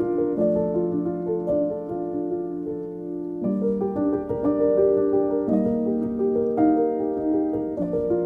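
Slow instrumental background music led by piano: held chords that change every second or two.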